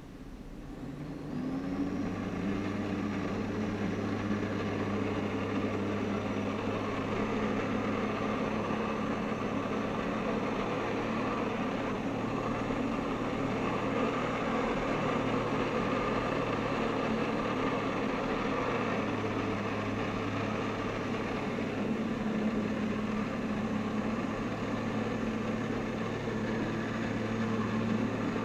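Personal watercraft engine driving a Flyboard, revving up about a second in and then running steadily under load, with water churning from the jet.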